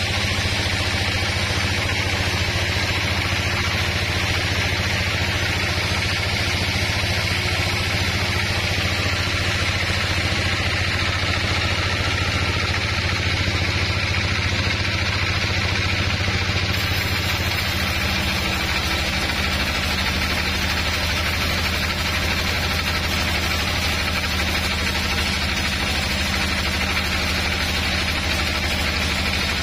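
Band sawmill running steadily, a continuous low machine hum with a higher whir over it; the low hum shifts in pitch about two-thirds of the way through.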